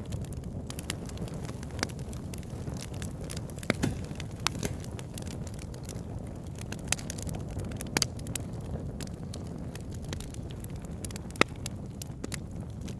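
Wood campfire burning logs: a steady low roar of flames with irregular sharp crackles and pops, the loudest about 4, 8 and 11 seconds in.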